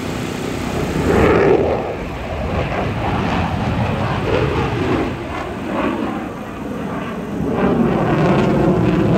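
Blue Angels F/A-18 Super Hornet jets flying past, a loud rushing jet noise that swells about a second in and again near the end.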